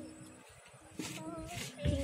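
Quiet background. About a second in, a faint distant voice is heard, and near the end a short low rumble.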